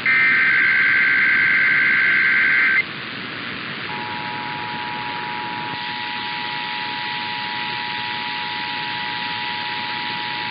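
Emergency Alert System tones received over a radio with steady hiss. It opens with the buzzy two-pitch data screech of the SAME header burst for almost three seconds. After a second of hiss, the steady two-tone EAS attention signal starts about four seconds in and holds, announcing the monthly test.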